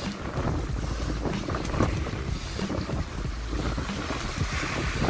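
Wind buffeting the microphone over rough surf breaking and washing against the rocks, with a hiss of foam swelling about halfway through and again near the end.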